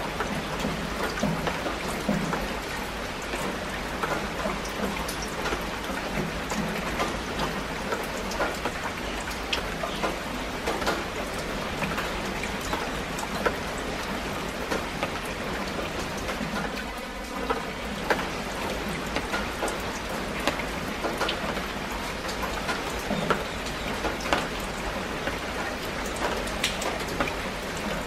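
Steady rain falling on broad plant leaves, with many sharp ticks from single drops striking close by.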